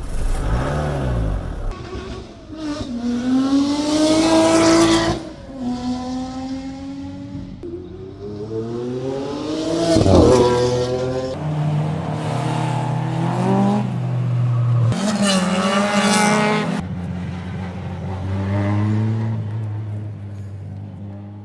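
Sports car engine accelerating and revving, its pitch repeatedly climbing and dropping back, loudest about ten seconds in, then settling into a steadier drone near the end.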